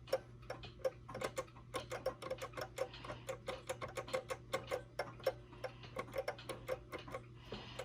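Mechanical clock ticking: the running movement of a 1929 E. Ingraham tambour mantel clock, described as old and worn out, with rapid clicks that fall unevenly.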